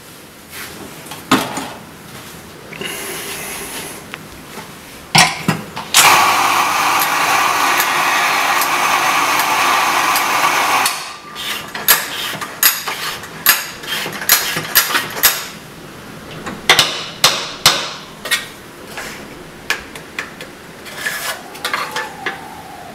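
Burr coffee grinder's motor running for about five seconds. Then a long run of sharp clicks as the doser lever is pulled again and again to drop the grounds into the portafilter. A few knocks come before the grinding starts.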